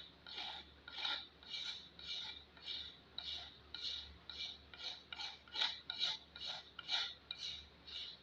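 Pocket knife blade scraping varnish off a wooden hatchet handle in regular strokes, about two a second.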